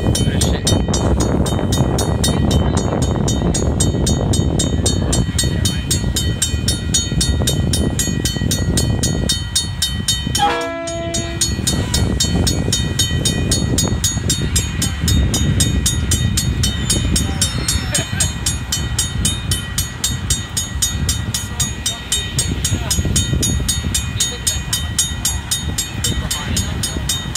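KiwiRail DX-class diesel-electric locomotive's engine running as it creeps slowly across a level crossing, with the crossing's warning bells ringing rapidly throughout. A short horn note sounds about ten seconds in.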